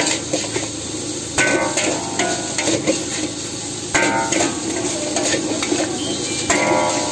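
Metal spatula scraping and knocking against a large steel wok while stir-frying egg fried rice, over a steady sizzle. About every two and a half seconds a stroke sets the wok ringing briefly.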